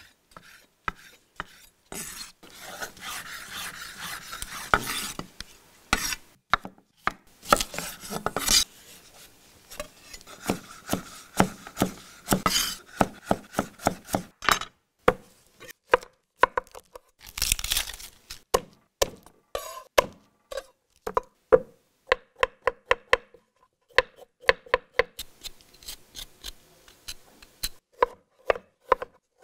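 A chef's knife cutting on a wooden cutting board: drawn slicing strokes through raw fish in the first half, then quick chopping of cucumber and potato, the blade tapping the board several times a second.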